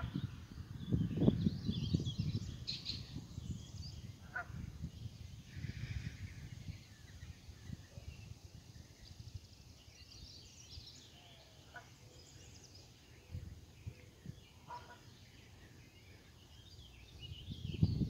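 Birds chirping and calling now and then over a low rumble on the microphone; the rumble is louder in the first few seconds and dies down after about seven seconds.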